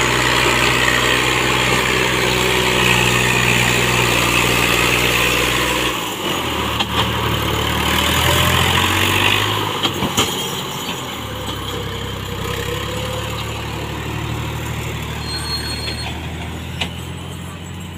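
Al-Ghazi 65 hp tractor's diesel engine running steadily under load while hauling a heavily loaded sugarcane trolley. The engine note changes about six seconds in, with a few sharp knocks around then, and the sound eases somewhat toward the end.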